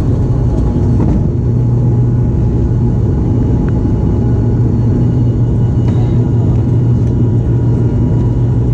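Twin-turboprop airliner's engines and propellers at take-off power, heard inside the cabin: a loud, steady low propeller drone over a rumble.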